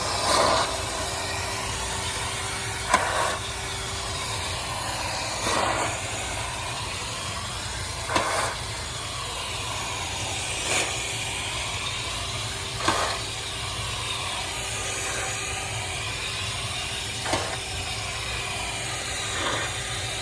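Vacuum cleaner running steadily, with a short louder swoosh about every two to three seconds, as it sucks the dust out of an air-conditioner return filter.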